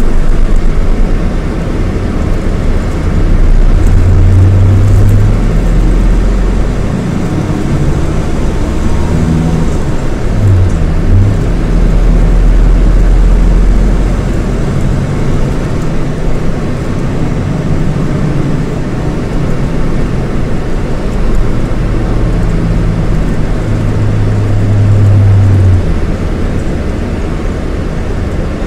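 Scania K230IB bus with its Scania DC9 230 hp diesel engine running under way, the engine note swelling and easing as it pulls, with a quick dip and rise in pitch about ten seconds in.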